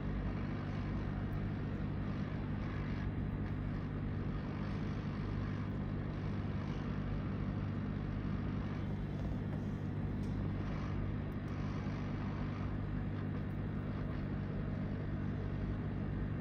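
Steady low hum with an even rushing noise over it, like electrical bench equipment or a fan running, unchanging throughout.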